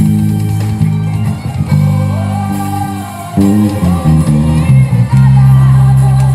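Five-string electric bass playing a groove: held low notes, then a quick run of short notes about three and a half seconds in, ending on a long sustained low note.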